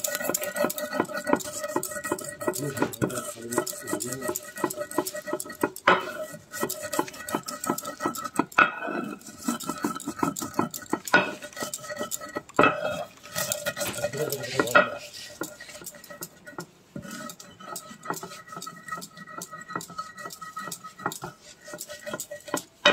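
Stone roller rubbed back and forth over roasted whole spice seeds on a sil-batta grinding stone: gritty, rapid scraping and crunching as the seeds are crushed coarse, with a few sharper knocks of stone on stone.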